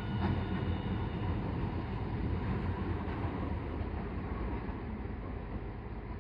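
Hiroshima Electric Railway 1000-series low-floor articulated tram running along street track and pulling away, its steady rumble slowly fading as it recedes. A few faint high tones sound in the first second.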